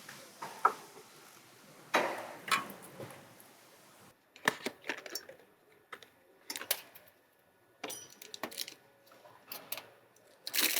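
Small parts being handled while fitting a new oil filter: scattered light clicks and clinks, with short rustling scrapes about two seconds in.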